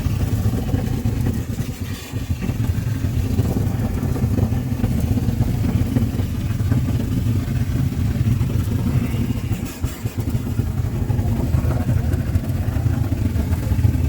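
A large engine running steadily at a low pitch, with a brief dip in level about two seconds in and again near ten seconds.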